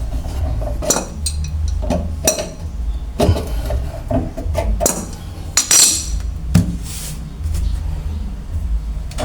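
Irregular metallic clinks and knocks of faucet fittings and hand tools being worked loose under a kitchen sink, with a louder clatter about six seconds in.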